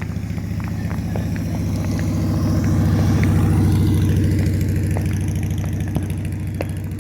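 A vehicle engine running at low revs, growing louder to a peak about halfway through and then fading. A few faint, sharp firework pops are scattered through it.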